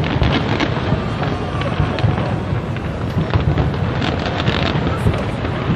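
Aerial fireworks going off in a dense, continuous barrage, many bangs and crackles in quick succession.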